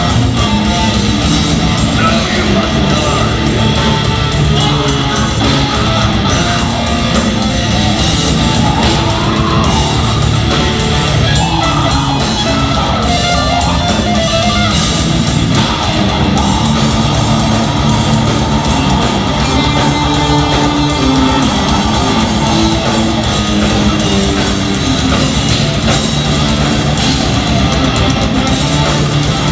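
Progressive metal band playing live, loud and without a break: distorted electric guitars over bass and busy drumming.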